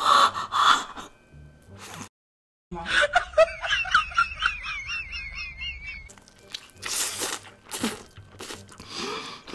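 Eating sounds as cheese-covered fried chicken is bitten and chewed, with short wet clicks. Partway through, a high wavering tone with a fast wobble lasts about three seconds.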